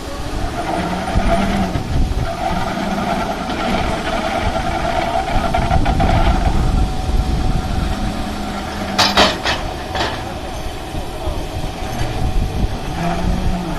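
E-2503 electric excavator running, a steady machine hum with a constant whine. Two sharp metallic knocks come about nine and ten seconds in.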